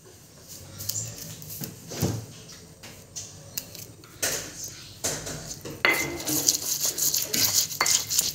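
Stone pestle grinding sambal in a stone mortar (ulekan and cobek). Scattered light knocks come in the first few seconds, then continuous gritty stone-on-stone scraping from about six seconds in, with a brief squeak now and then.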